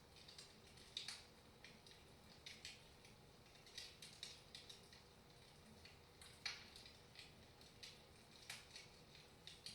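Wood fire in a fireplace crackling softly: irregular small pops and snaps, a few a second, over a faint low hiss.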